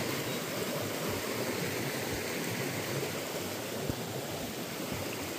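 River water rushing steadily, an even hiss of flowing water, with a few soft low thumps.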